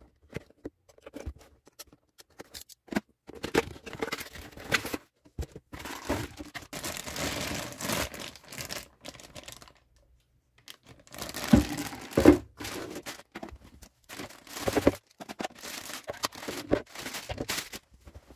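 Clear plastic packaging bags crinkling and tearing as the parts of a prize figure are unwrapped, in two long spells with a short pause in the middle, amid scattered clicks and taps of the parts being handled.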